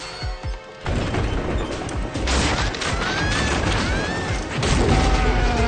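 Cartoon action soundtrack: a sudden crash about a second in, then continuing crashing and rumbling effects with short rising-and-falling whistles, over music.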